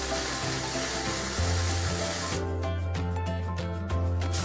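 Welding on steel bar: a steady crackling hiss for about the first two seconds, which stops suddenly, over background music that continues with a ticking rhythm.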